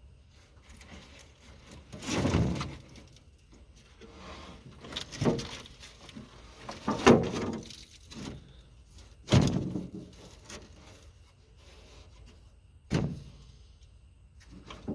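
About five heavy clunks a few seconds apart, some followed by a short scrape, as the Cat 416 backhoe's cab floor pan and panels are handled and set back in place.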